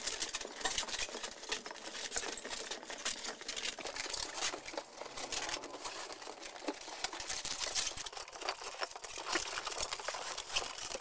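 Latex modelling balloons rubbing and creaking against each other and against hands as they are twisted and woven into a rainbow arch: a dense, steady run of small crackles and rubs.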